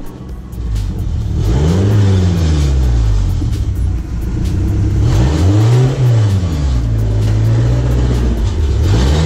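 Custom three-wheeled trike's engine running as it pulls slowly past close by, revved twice so that its pitch rises and falls, about two seconds in and again about six seconds in.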